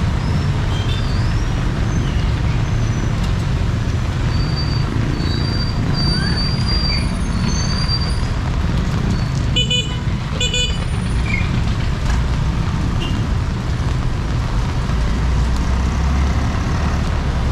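Steady street traffic rumble from passing vehicles, with two short vehicle-horn toots in quick succession about ten seconds in. Faint high chirps come and go in the middle.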